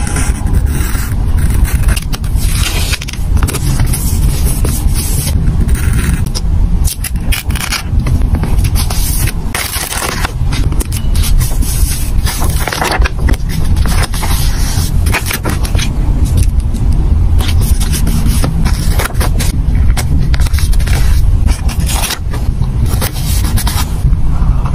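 Close-miked paper and sticker handling: sticker sheets rustling, stickers peeled from their backing and pressed and rubbed down onto a notebook page, in quick irregular crackles and scrapes over a steady low rumble.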